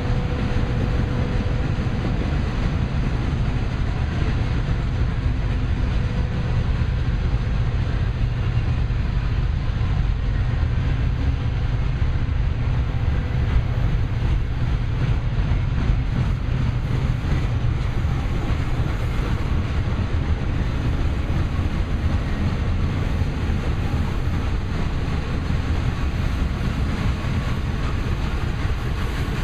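Freight train's boxcars and refrigerator cars rolling past: a steady rumble of steel wheels on the rails.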